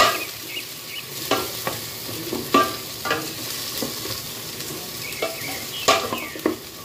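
Sliced red onions and garlic sautéing in hot olive oil in a metal pot, sizzling steadily, while a wooden spatula stirs them with repeated scrapes and knocks against the pot.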